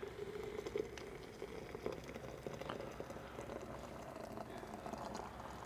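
Boiling water being poured into a stainless steel coffee carafe over a small dose of OxiClean, a faint steady pouring and bubbling.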